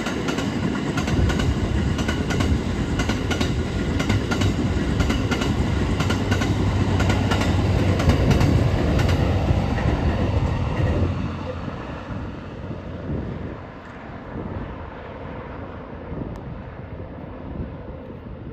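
A train passing close by: wheels clicking over rail joints over a steady low rumble, loud for the first ten seconds or so, then fading away.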